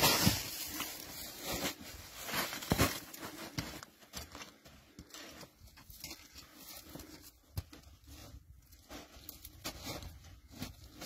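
A plastic sack of animal feed rustling and crinkling as it is hoisted onto a shoulder, loudest in the first second. After that come scattered scuffs and steps on rock and snow as it is carried up a slope.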